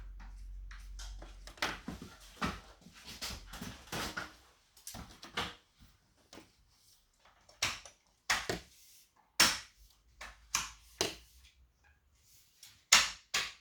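Plastic clips snapping and clicking as a roof trim strip is pried and twisted off them, with the loose strip knocking and rattling; irregular sharp clicks, a few louder ones near the end.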